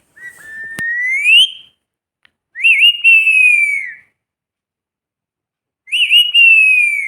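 Parrot whistling three times: first a whistle rising in pitch, then two longer whistles that flick up and down and then glide slowly downward.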